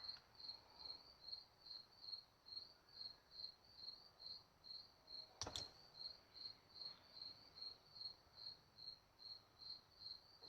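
A cricket chirping faintly and steadily, about three short high chirps a second. One sharp click about halfway through.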